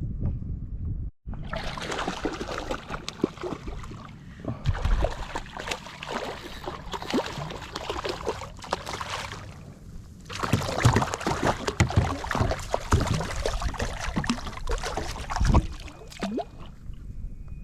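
Water splashing and sloshing against a kayak, a dense crackle of small splashes that eases off briefly twice.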